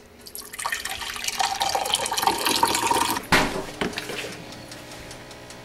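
Coffee poured from a stainless-steel thermal carafe into a mug, a steady pouring stream whose pitch rises slightly as the mug fills. It stops about three seconds in, followed by a sharp knock and a lighter one.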